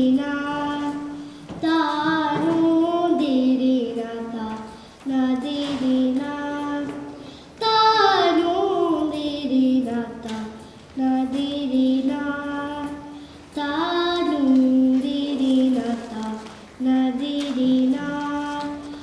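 A young girl singing Hindustani classical raag Yaman solo, in phrases of a few seconds made of held notes and sliding ornaments, with short breaks between phrases.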